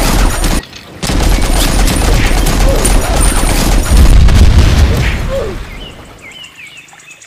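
Dubbed-in machine-gun and explosion sound effects: a rapid, continuous rattle of automatic fire mixed with heavy explosion booms. It breaks off briefly just under a second in, is loudest around four to five seconds, then fades away.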